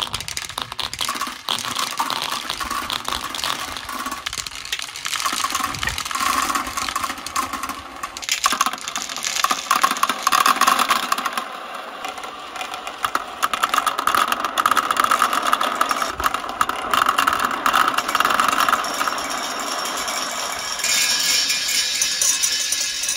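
Many small balls rolling and clattering through a homemade marble run: they rattle through a plastic rain gutter and spiral buckets, then roll along a steel rail. The result is a dense, continuous clatter of clicks from ball against ball and ball against track.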